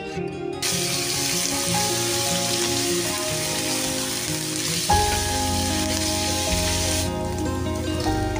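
Pork, garlic and onion sizzling as they fry in a hot wok, the sizzle starting about half a second in and dropping away near the end. Background music plays throughout, with a bass beat coming in about halfway.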